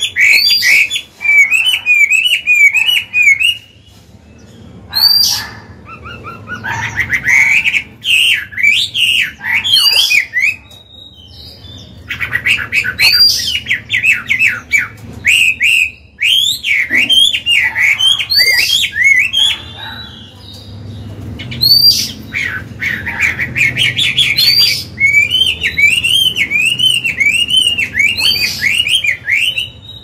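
Chinese hwamei singing loudly: long, varied phrases of rich whistles and fast repeated notes, broken by a few short pauses.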